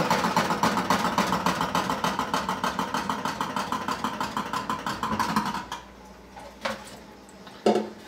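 Water-powered 1967 Kenner Jet Action Easy Wash toy dishwasher running with its rack spinning, making a fast, even ticking rattle of roughly ten ticks a second, which the owner suspects is the rack hitting the edge or something that fell inside. The rattle cuts off suddenly about two-thirds of the way through, and a couple of short knocks follow near the end.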